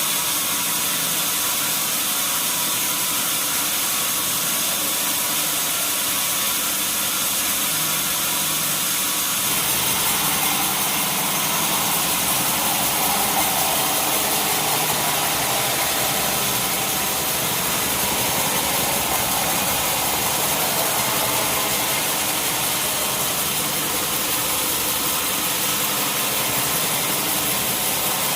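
Sawmill machinery running steadily with a constant engine-like noise. About ten seconds in, a fuller mid-pitched band of sound swells up, lasts some ten seconds, then eases back.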